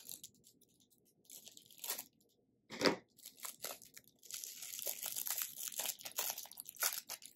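Plastic packaging crinkling and tearing as a small toy package is opened by hand: scattered crackles, denser and busier from about four seconds in.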